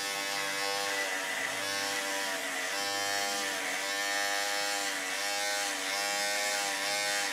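Electric hair clipper buzzing steadily, its pitch sagging slightly now and then as the blade is worked through hair.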